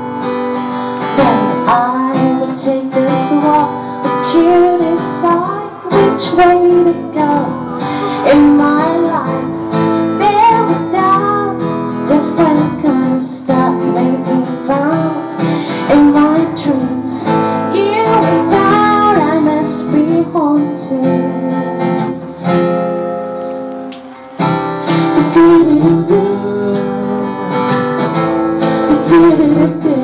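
Acoustic guitar strummed with a woman singing a melody over it, played live through microphones. There is a brief lull about three-quarters of the way through before the guitar and voice pick up again.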